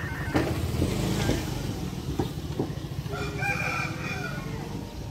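A rooster crowing once, about three seconds in, over a steady low rumble.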